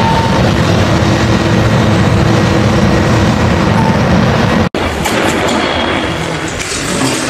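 Overhead crane hoisting a tank on chains and lifting straps: a steady, loud mechanical rumble with rattling and a faint whine. It breaks off for an instant nearly five seconds in, then carries on a little quieter.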